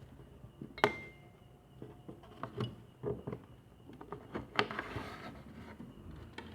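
Knocks and clicks of hands handling a homemade plywood egg incubator. The sharpest knock comes about a second in and rings briefly, and more scattered taps follow.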